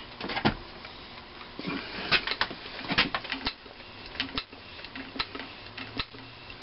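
Hand grease gun being pumped, with irregular clicks and creaks every half second or so, forcing grease into the crankshaft greaser pipe of a McCormick-Deering type M engine. The pipe is filling to the point of grease coming out, and the gun is hard to pump.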